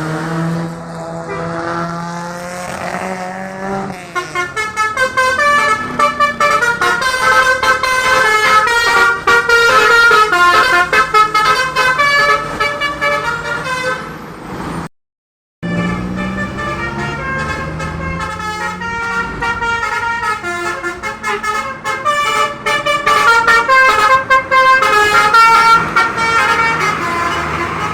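Tour bus's basuri 'telolet' multi-tone musical horn playing quick, jumping melodies of notes. It comes in two long stretches broken by a short silence about halfway through.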